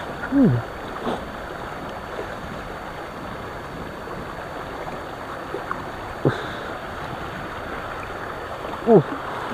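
Steady rush of water in a concrete canal flowing over a low weir, with three short sounds that fall in pitch: one just after the start, one a little past the middle and one near the end.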